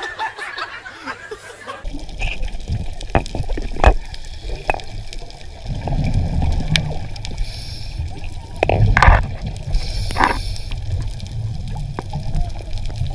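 Underwater sound on a diver's camera: a low rumble of water moving around the camera, scattered clicks, and two bursts of bubbling in the second half.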